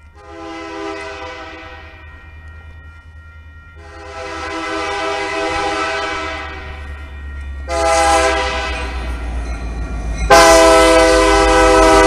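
A Lake State Railway diesel locomotive's air horn sounding for a grade crossing as the train approaches: four blasts, each louder than the last. The final one is the loudest and is still sounding at the end. Underneath, the low rumble of the locomotives grows as they near.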